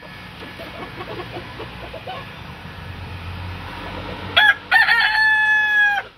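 A rooster crowing once, about four seconds in: two short notes, then a long held note that drops away at the end.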